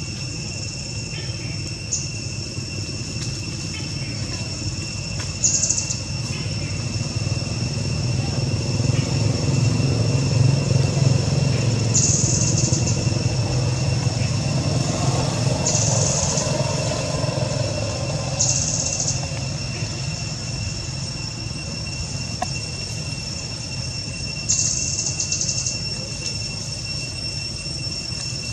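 Outdoor ambience: a steady high-pitched insect drone with short buzzing bursts every few seconds, over a low rumble that swells in the middle and fades again.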